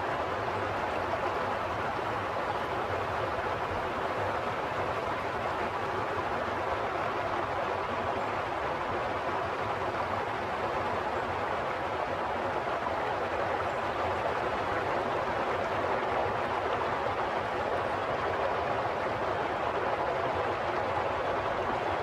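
Steady rushing of running water, an even, unbroken wash of sound.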